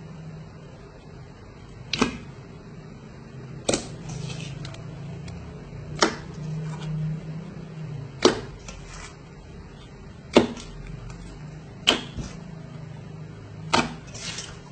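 Clear watery slime being handled, giving a sharp click or pop about every two seconds over a faint steady low hum.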